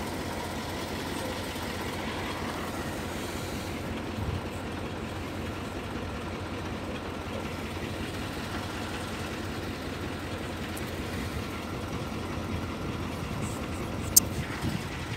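Steady motor-vehicle noise, with a single sharp click near the end.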